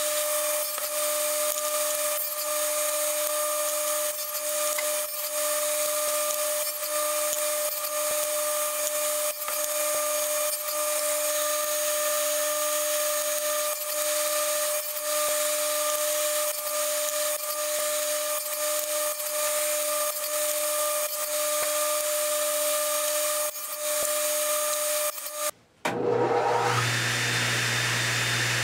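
Table saw running steadily while a small walnut piece is nibbled on a crosscut sled, with many short cutting passes, to clear a half-depth notch. Near the end the sound breaks off briefly, then a saw motor starts again with a rising whine and settles into a steady hum.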